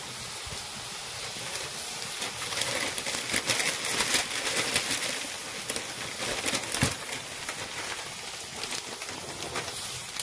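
Water at a rolling boil in a black iron kadai over a wood fire: a dense bubbling hiss with many scattered sharp crackles, busiest in the middle. The water has come to the boil, ready for the rice flour to go in.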